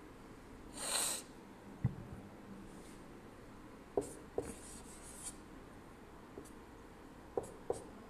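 Felt-tip marker writing on a whiteboard: a longer rushing stroke about a second in, then short scratchy strokes and a few sharp taps as the tip meets the board.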